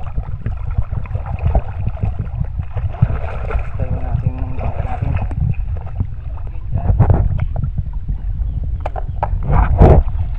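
Water sloshing and splashing close to the microphone as someone moves through a shallow river, over a low rumble of wind on the microphone; louder splashes about seven and ten seconds in.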